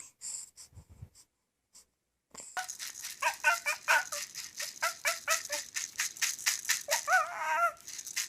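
A rattle shaken fast and steadily, about five shakes a second, starting a couple of seconds in after a few scattered clicks. Short high vocal sounds come in over the shaking, most clearly near the end.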